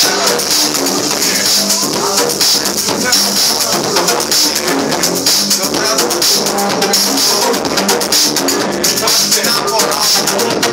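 Music from a DJ mix played through a two-deck controller, with a fast, busy ticking percussion pattern over pulsing bass notes.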